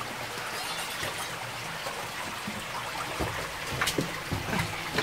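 Shallow cave stream trickling and running over the rock floor, steady throughout, with a few short knocks in the second half.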